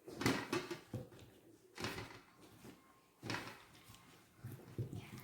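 Marinated food being transferred from a bowl into a baking pan: four short bursts of scraping and knocking as it is tipped and spooned across.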